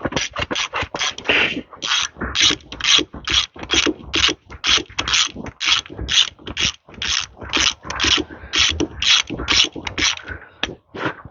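Hand ratchet clicking steadily, about three clicks a second, as a just-loosened set screw is spun out with a T30 Torx bit.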